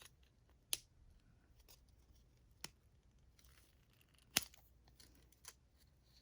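Faint handling sounds: a few sharp clicks of small hard parts being set in place. The loudest click comes about four seconds in.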